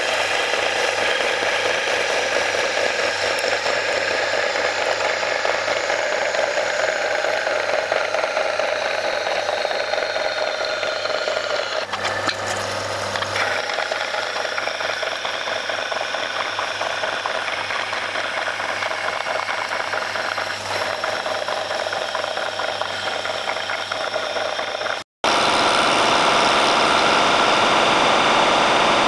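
Vertical bandsaw cutting out a metal bracket plate, the blade running steadily through the metal. About 25 seconds in the sound breaks off abruptly and a louder steady machining sound from a metal lathe follows.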